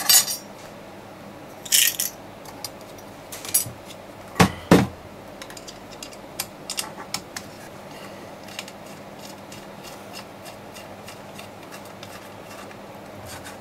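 Small metal clinks, taps and knocks from handling the charger's metal case and side plates during disassembly, a few louder knocks in the first five seconds and lighter scattered ticks after.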